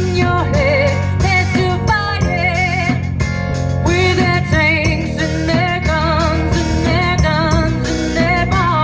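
A band playing a rock song, with guitar and a singing voice over a steady bass.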